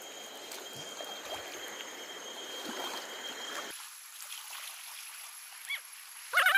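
Shallow river water running and splashing, a steady hiss that turns abruptly thinner and higher about three and a half seconds in. A brief voice call near the end.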